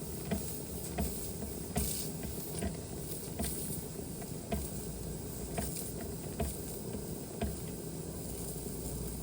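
Josef Falk 456/1S toy steam engine running under steam: a steady hiss and bubbling, with light clicks and knocks about once a second.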